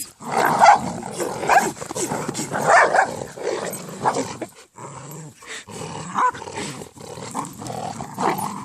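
Dogs play-growling while tugging on a rope in a game of tug-of-war, in rough, continuous bursts with a brief break about halfway through.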